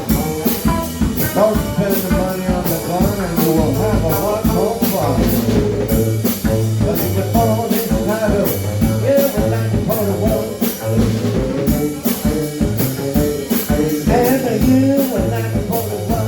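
A band playing a blues-rock style song: a drum kit keeping a steady beat under a repeating bass line, with a singing voice or lead line wavering over the top.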